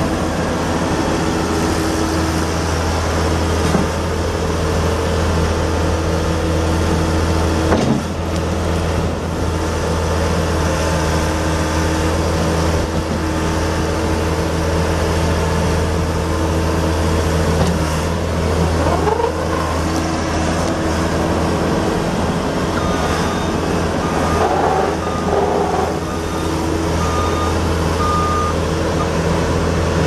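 Hydramac 2650D skid steer's four-cylinder diesel engine running steadily as the machine drives and turns, with brief rises in pitch partway through. Faint repeated beeping is heard in the last third.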